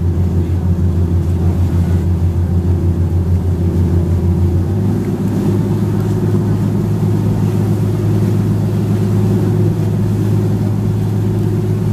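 Tour boat's engine running steadily as the boat gets under way, its pitch stepping up about five seconds in as the revs rise.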